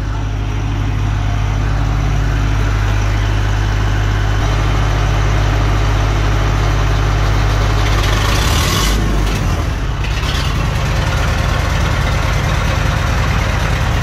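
Massey Ferguson 178 tractor's four-cylinder Perkins diesel idling steadily, cold, just after a cold start. About eight and a half seconds in there is a brief rush of noise and the engine sound shifts.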